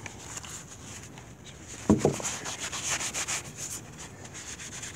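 Scrubbing on a wet, rust-stripped steel axe head from a vinegar bath: a single clunk about two seconds in, then rapid rhythmic scrubbing strokes, about six a second, for a second or so before they fade.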